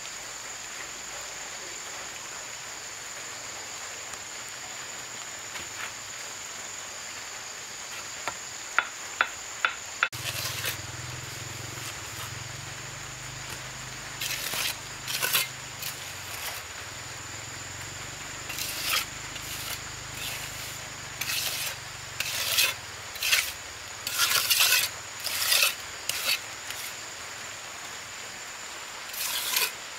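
Trowel scraping and spreading wet cement in short strokes, roughly one every second or two, over a low hum and a steady high whine. Before the strokes begin there is a quieter stretch with a few sharp taps.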